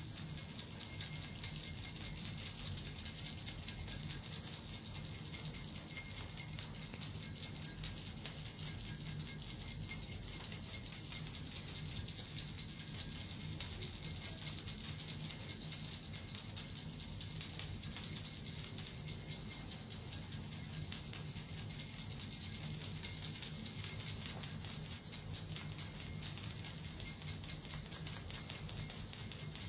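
Suzu bells and a metal rattle shaken continuously: an even, unbroken jingling with a high, bright ring.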